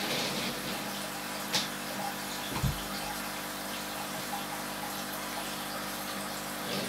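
Aquarium filter running: a steady rush and trickle of water over a low hum. There is a short click about one and a half seconds in and a low thump a second later.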